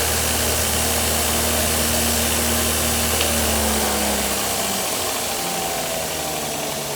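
DeWalt DW758 8-inch bench grinder driving a 2 x 42 inch belt grinder attachment, running with a steady hum and belt whir; about four and a half seconds in the hum changes and a falling tone follows as the machine winds down.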